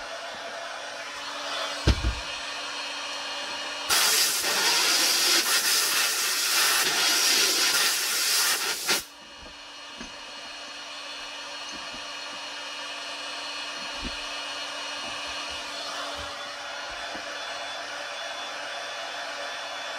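A DeWalt heat gun runs steadily, with a dull thump about two seconds in. From about four to nine seconds a much louder hiss of a compressed-air blow gun cuts in and stops abruptly: the air is cooling the hot Kydex to set the holster's bend.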